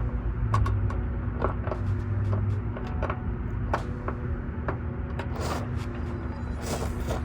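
Scattered light clicks and knocks of hand work on a truck taillight and its mounting bolts, with a brief cluster of clicks near the end, over a steady low hum.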